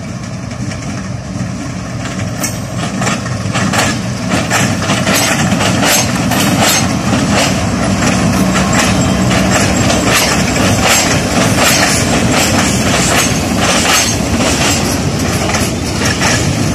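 Twin RGE-24 diesel-electric locomotives running past with a low engine drone. From about two seconds in, their wheels and those of the hopper wagons behind them clatter over a rail diamond crossing in a rapid, growing clickety-clack.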